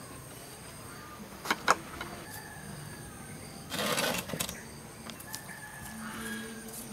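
Two sharp clicks about a second and a half in, a knife striking a ceramic plate as it splits a ripe papaya, with chickens calling in the background and a short rustling burst around four seconds in.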